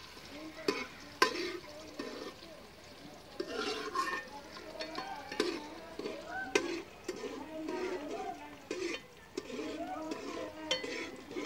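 Metal spoon stirring food frying in a steel pot, with a few sharp clinks of the spoon against the pot. Voices are faint in the background.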